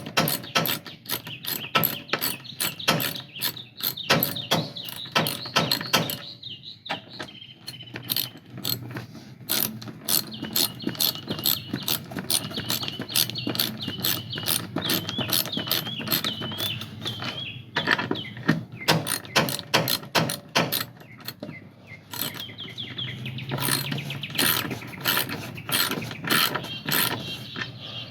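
Ratchet wrench clicking rapidly in runs with short pauses, driving down the seat bracket bolts that pull the new rear carpet taut.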